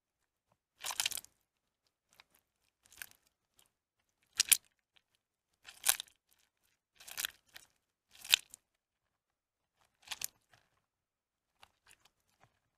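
Soaked, mushy bar soap squeezed and pulled apart in wet hands, giving about seven short wet squishing, crumbling sounds a second or two apart.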